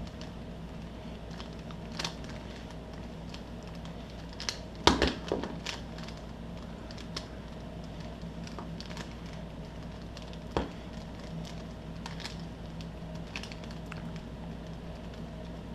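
Plastic twisty puzzles being handled, giving scattered light clicks and knocks, with a louder clatter about five seconds in and another sharp knock about ten and a half seconds in, over a steady low hum.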